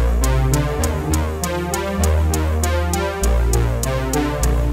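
Electronic background music with a steady beat of about four ticks a second over a deep bass line.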